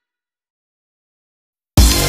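Dead silence, then electronic dance music with a heavy bass starts abruptly near the end.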